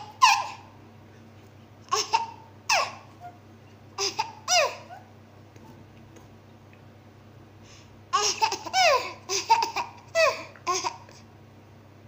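A baby laughing and squealing in short high-pitched bursts that slide down in pitch: a few near the start, around two and four seconds in, then a quicker run of them from about eight to eleven seconds in.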